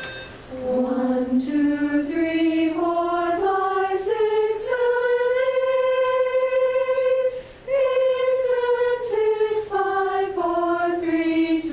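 A chorus singing a major scale together as a vocal warm-up, counting the notes one to eight: it steps up an octave note by note, holds the top note, and after a short breath steps back down.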